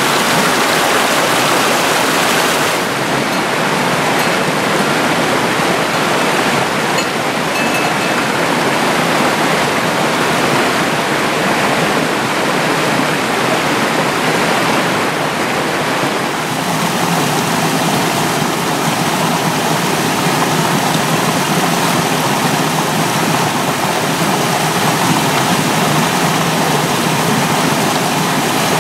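Mountain stream rushing and splashing over rocks in small cascades: a loud, steady rush of water that changes in tone about three seconds in and again about sixteen seconds in.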